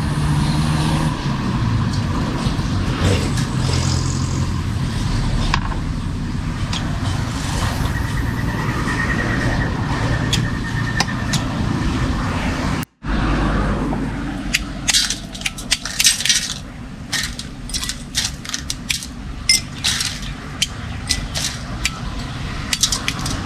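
Steady traffic rumble from the road, then about halfway through, many quick sharp clinks of a metal spoon against glass tumblers as fresh citrus juice is mixed.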